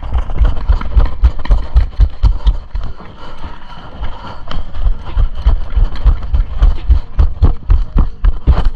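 Running footsteps and gear jolting a body-worn camera: heavy thumps about three a second, with a quieter stretch around three to four seconds in.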